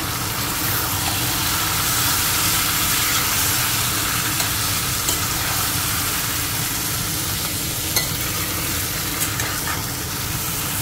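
Marinated chicken pieces and onions sizzling steadily in hot oil in a stainless steel kadai, while a spatula stirs and turns them, with a few sharp clicks of the spatula against the pan.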